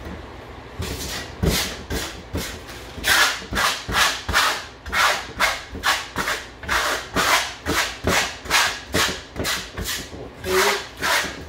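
A wide spatula scraping wet concrete-effect plaster across a plywood board in repeated short strokes, about two or three a second, starting about a second in.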